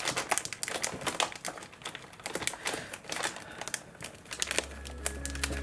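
Thin plastic vacuum-bagging film crinkling and crackling as hands press and smooth it down over the breather cloth on a carbon-fibre mould layup. A low steady hum fades in near the end.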